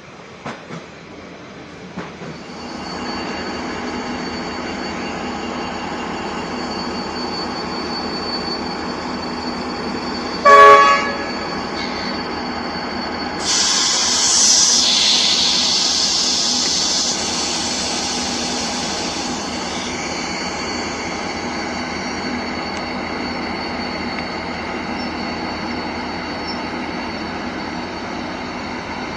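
A train running past with a steady rumble and a thin high whine. About a third of the way in its horn gives one short, loud blast, and a few seconds later a high hissing squeal rises for about four seconds before easing off.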